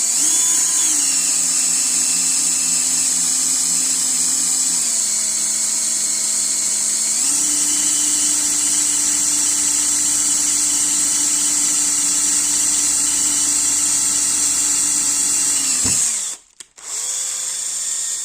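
Electric drill running steadily, its pitch stepping down and back up a few times. It stops about sixteen seconds in, then runs again briefly.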